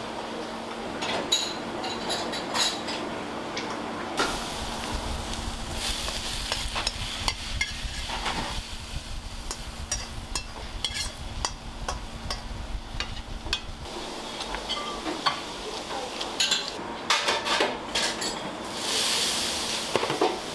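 Wok stir-frying of liver and garlic chives: metal utensils knock and scrape against the wok over a steady sizzle, with a low rumble through the middle. Near the end comes a louder hissing burst.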